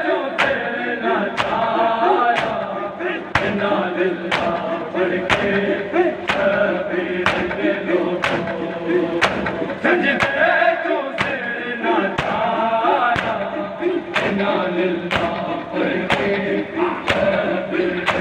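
Men's voices chanting a noha together while the mourners beat their bare chests in unison (matam). The slaps land together about once a second over the chant.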